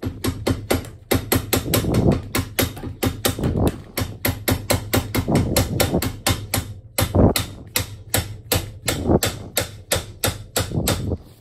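Small rubber mallet tapping a KTM 450 EXC-F's aluminium upper triple clamp over and over, about three to four quick strikes a second with a short pause midway, to knock the stuck clamp loose from the fork tubes and steering stem.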